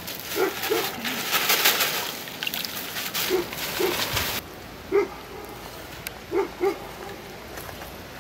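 A dog barking, mostly two barks at a time, several times over. For the first four seconds or so there is also a rustling hiss with small clicks and splashes, which cuts off abruptly.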